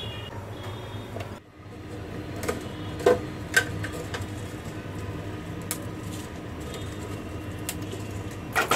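Dried red chillies being snapped apart by hand, giving a few sharp crackles and clicks, the loudest about three seconds in, over a steady low background hum.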